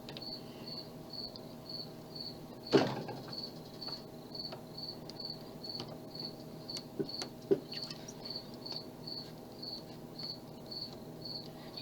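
Faint metallic clicks and scrapes of a lock pick and tension wrench working the pins inside a Master Lock level 9 padlock, with one sharper click about three seconds in and two smaller ones around seven seconds. A high, even chirp repeats about three times a second in the background.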